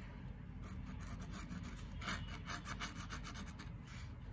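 Tracing an outline onto a glitter foam sheet: a run of short, scratchy strokes of the drawing tip, busier from about two seconds in.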